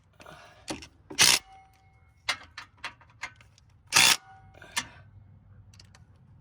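Handheld power tool running bolts in with two short bursts about three seconds apart, with small clicks of tool and parts being handled in between.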